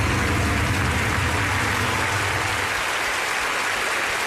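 Audience applauding steadily, with a low rumble underneath that fades out about halfway through.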